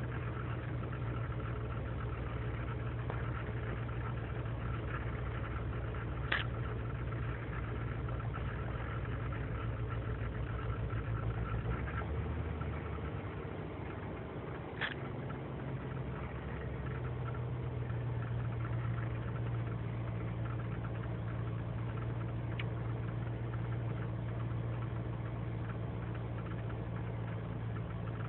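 2003 GMC Sierra's 5.3-litre V8 idling cold with a rough, erratic idle. The idle sags a little about halfway through and then picks back up, and there are two short clicks. The owner takes the cold rough idle, with its lean and misfire codes, for a failing intake manifold gasket.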